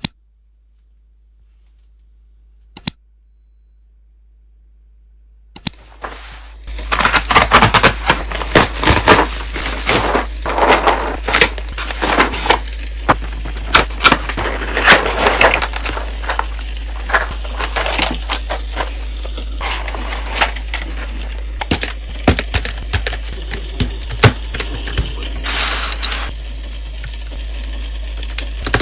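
Close-up handling noise: two lone clicks, then from about six seconds in a dense, loud run of sharp clicks and crackling that keeps going, over a steady low hum.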